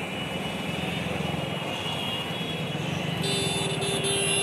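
Steady road-traffic noise with engines idling and a low hum. About three seconds in, a buzzing horn-like tone sounds and holds for over a second.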